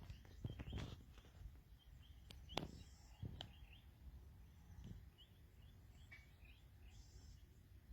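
Faint, scattered knocks and clicks over a low rumble, with faint short bird chirps in the background.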